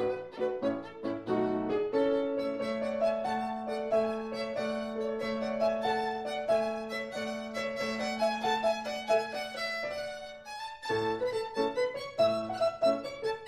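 Violin-led accompaniment music for a silent film. It opens with quick repeated notes, moves to a melody over a long held low note, breaks off briefly about eleven seconds in, then picks up with quick notes again.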